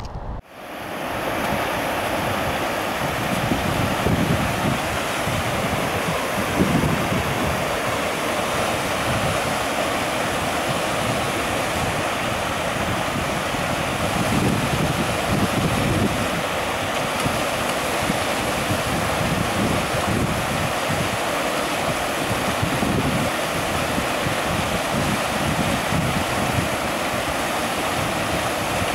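Fast-flowing mountain stream rushing over rocks, a steady, even rush of water.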